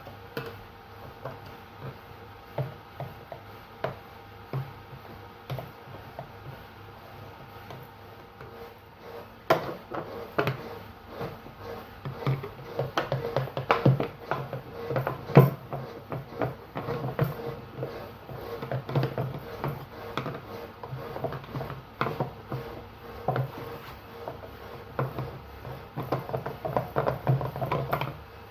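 Irregular clicks, taps and scraping of hand tools on the metal drum shaft of a washing machine, working at a washer that is stuck in place. The taps are sparse at first and come much thicker from about a third of the way in.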